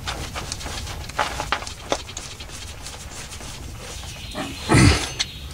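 Metal seal puller clicking and scraping in short irregular strokes against the transmission's rear tailshaft seal as the old seal is hooked and pried out. A brief louder, lower sound comes near the end.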